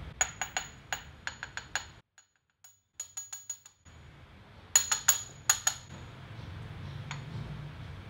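Machined steel press dies and cups clinking against each other and being set down on the press bed: runs of sharp metallic clinks with a bright ring, loudest in a quick cluster about five seconds in. A low steady hum underneath.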